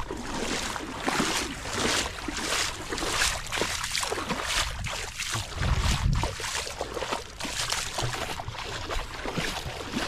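Footsteps along wet sand and shallow seawater at the water's edge, an even stride of about two steps a second, with wind rumbling on the microphone.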